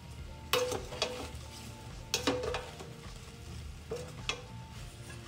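Chopped cabbage being stirred in a frying pan, the utensil knocking and scraping against the pan about six times, some strokes leaving a short metallic ring, over a faint sizzle.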